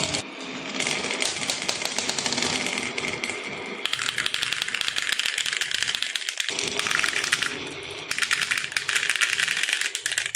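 Marbles rolling and clattering down a wooden marble-run track: a dense, rapid rattle of clicks that grows fuller about four seconds in and cuts off suddenly at the end.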